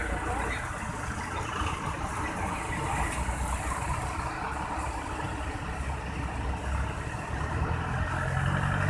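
Large intercity coach's diesel engine running as the bus pulls away across wet pavement. An engine revs up, rising in pitch, near the end.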